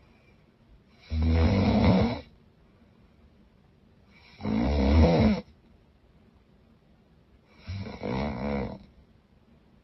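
A woman snoring loudly: three big snores, each about a second long, coming about every three seconds with quiet breathing gaps between them.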